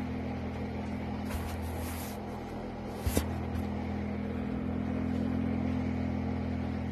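Graphics-card cooling fan with several blades clipped off to balance two broken ones, running with a steady, quiet hum and no more shaking from imbalance. A little rustling about a second in and a brief knock about three seconds in come as a hand moves over the card.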